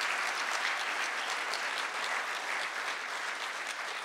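Concert audience applauding: many hands clapping in a dense, even patter that eases slightly near the end.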